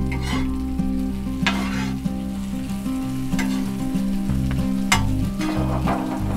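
Sliced peppers sizzling on a Blackstone flat-top griddle while a metal spatula stirs them, with a few louder scrapes of the spatula across the steel.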